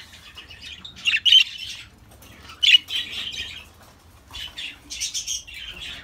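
Budgerigar chirping and squawking in short, harsh, high calls, in three bouts: about a second in, near three seconds and near five seconds.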